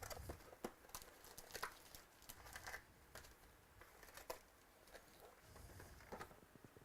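Faint crinkling, tearing and light irregular clicks of trading-card packs being opened and the cards handled.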